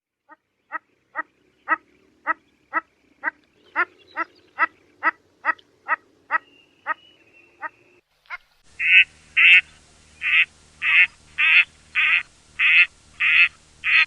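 A run of short, clipped calls, about two a second, for some seven seconds. Then a duck quacking loudly and repeatedly, about two quacks a second.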